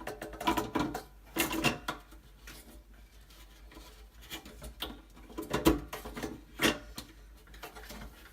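Plastic aquarium plumbing parts being handled and fitted: a scatter of sharp clicks and knocks as a piece is clipped and pressed into place, with the loudest knocks about a second and a half in and near six and seven seconds.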